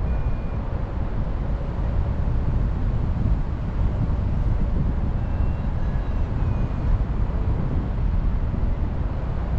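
Wind rushing over the microphone of a camera on a hang glider in flight: a steady, low rumbling noise.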